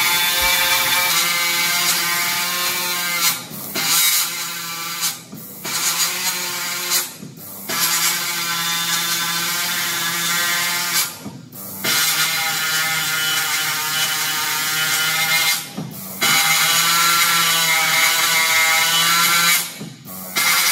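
CNC marking head's stylus hammering characters into a steel plate, a loud, steady, rapid buzz that breaks off briefly about six times as it moves between strokes.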